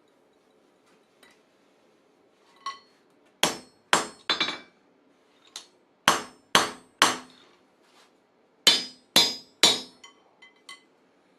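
Hand hammer striking hot steel on an anvil while forging a hammer head: three groups of three sharp, ringing blows, with a few lighter taps before, between and after them.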